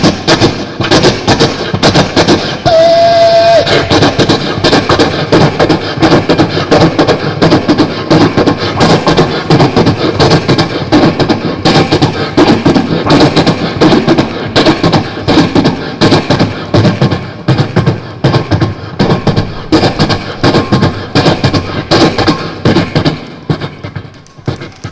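Mimicry artists making vocal sound effects: fast, continuous beatbox-style mouth percussion, with a short whistle-like tone about three seconds in.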